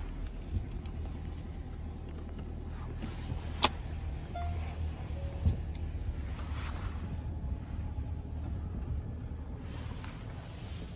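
Car driving slowly over a leaf-covered dirt track, with a steady low rumble of engine and tyres. A sharp click comes about three and a half seconds in, and a dull knock follows about two seconds later.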